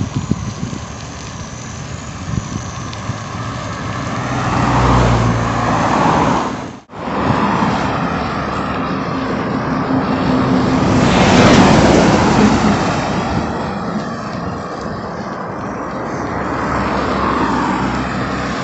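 Road traffic passing on a two-lane highway, a broad rushing noise of cars and a bus going by that swells around five seconds in and again, loudest, around eleven to twelve seconds in. The sound drops out for an instant about seven seconds in.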